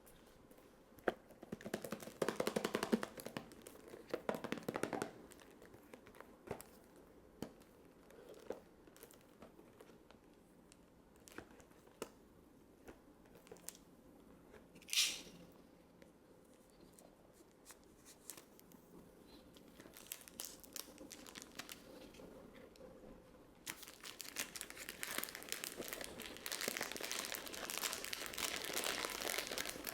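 Perfume packaging being unwrapped by hand: crinkling and tearing of wrapping in bursts over the first few seconds, scattered small clicks and taps, and a short high hiss about halfway. Steady crinkling runs through the last six seconds.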